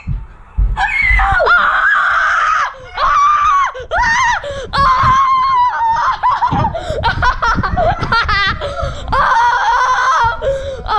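Several people screaming and yelling with excitement, long high-pitched shrieks overlapping one another with bits of laughter: a burst of celebration.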